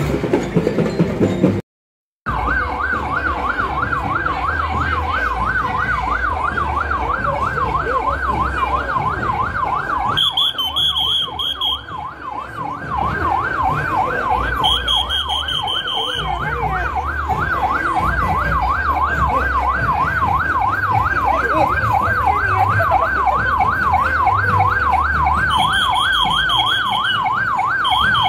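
Police pickup truck's electronic siren on a fast yelp, wailing up and down several times a second, starting about two seconds in after a brief dropout. A higher, steadier tone joins three times for a second or two, over a low engine rumble.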